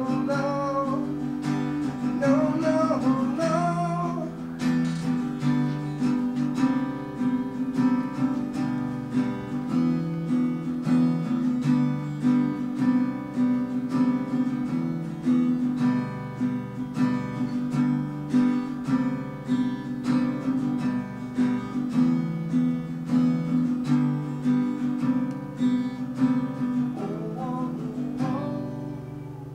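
Acoustic guitar strummed in a steady rhythm, with a man singing a line at the start and again near the end. The last chord rings out and fades as the song ends.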